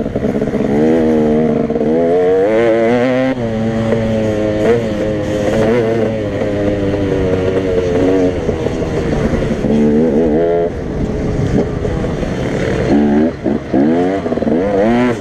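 Off-road motorcycle engine heard from on board, revving up and falling back again and again under throttle and gear changes. Near the end the revs swing up and down more quickly in a few sharp blips.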